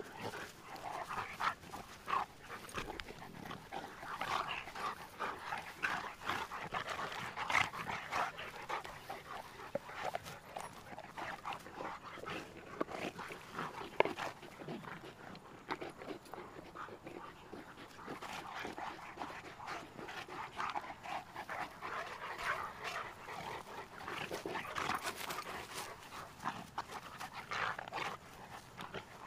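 Two Cane Corso dogs play-wrestling, making dog sounds in irregular short bursts that are busiest in the first third and again in the last third, with one sharp click about halfway through.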